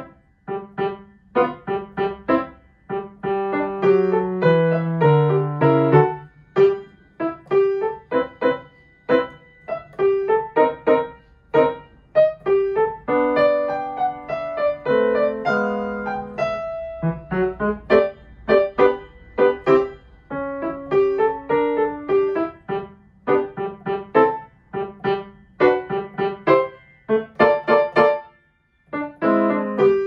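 Piano played with both hands at a slow tempo: a simple melody over lower bass notes in a children's practice piece. The playing stops briefly about a second before the end, then starts again.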